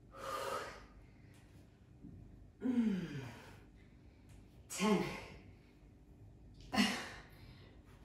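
A woman's hard, voiced exhalations during exercise, four of them about two seconds apart, one each rep; some fall in pitch like a sigh.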